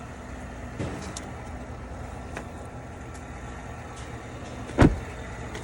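Truck running, a steady low engine and road rumble heard from inside the cab, with one sharp, loud thump just under five seconds in.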